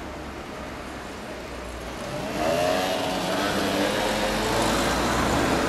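A car and a motor scooter passing close by on the street, their engine and tyre noise swelling about two seconds in and staying up, with engine tones shifting in pitch.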